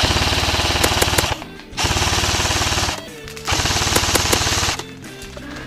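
Airsoft electric rifle firing on full auto in three long bursts, each about a second long, with rapid even cycling of the gearbox and shots.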